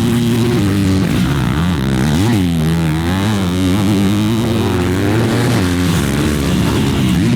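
Motocross bike engine being ridden hard, its pitch repeatedly rising and falling as the rider opens and closes the throttle and shifts through the gears.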